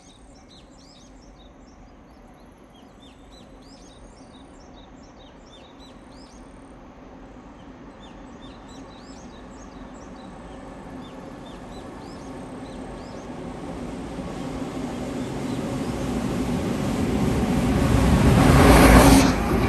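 EF510 electric locomotive hauling a container freight train, approaching and passing through without stopping. Its rumble and hum rise steadily and peak loudly near the end as the locomotive goes by. Small birds chirp during the first part.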